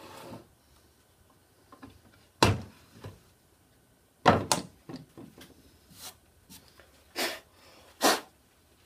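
A handful of separate knocks and clatters of tools handled on a wooden workbench: a cordless drill set down and a bar clamp and 3D-printed plastic jig taken off a pine board. The loudest knocks come about two and a half and four seconds in.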